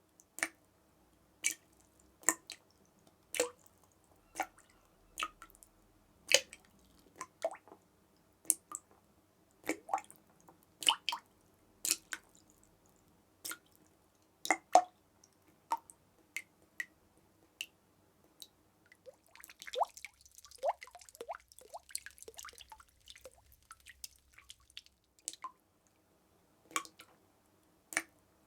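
Water dripping in single, separate drops, roughly one a second. About two-thirds of the way through comes a few seconds of quicker, denser dripping and trickling, then single drops resume.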